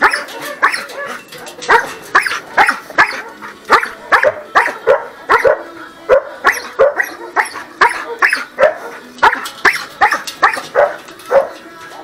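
Dogs barking over and over, about two to three sharp barks a second at several different pitches, with no pause.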